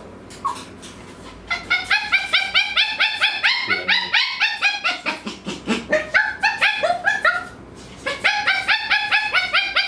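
12-year-old Maltese screaming in a fast run of high-pitched yelps, about five a second, breaking off briefly around seven seconds in and then starting again. It is the restless, non-stop screaming that the owner links to a sore, very itchy face.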